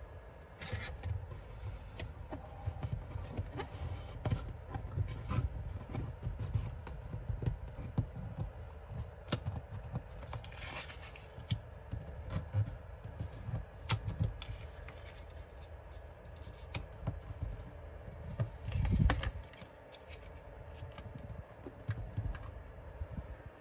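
Hands handling paper postcards against a wall while pinning them up: scratching and scraping with many small clicks and taps, and one louder thump about three-quarters of the way through.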